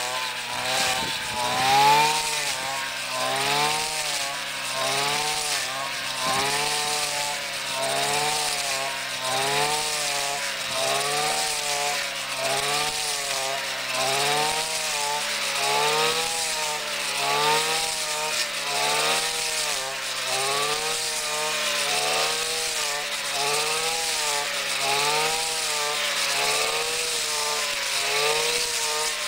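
Brush cutter engine running under load while mowing standing rice. Its pitch rises and falls in a steady rhythm, about once a second, as the blade is swept side to side through the stalks.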